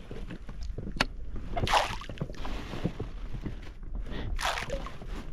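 A small boat being rowed: two strokes splashing through the water about two and a half seconds apart, over a steady wash of moving water.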